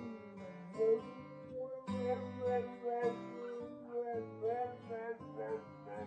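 Acoustic guitar being played while a dog howls along, its howls sliding up and down in pitch over the chords.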